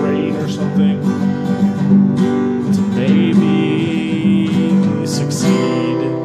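Acoustic guitar strummed as an outro, ending with a last chord struck near the end and left ringing.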